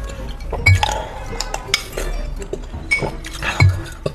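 A wooden spoon scraping and knocking against ice inside a glass tumbler, with sharp clinks off the glass. Two louder knocks come about a second in and near the end.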